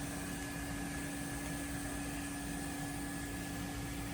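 Steady whirring hum and hiss of a fan-driven machine, with an unchanging low tone.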